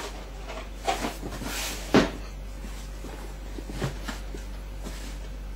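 Sneakers being handled: a few knocks with soft rustling between, the loudest a sharp knock about two seconds in.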